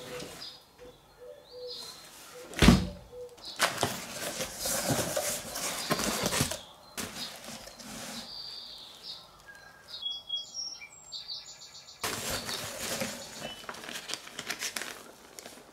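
Cardboard parcel being handled and unpacked: a sharp thump about three seconds in, then bursts of crinkly rustling from the plastic bubble wrap and a small plastic bag. High chirps sound faintly behind it, clearest about ten seconds in.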